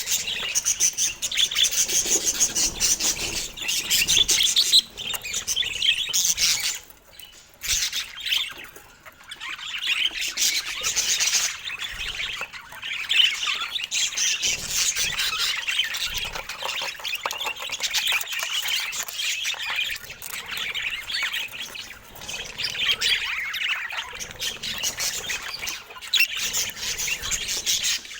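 Budgerigars chattering with fast, high chirps, almost without a break, dropping away briefly about seven and nine seconds in.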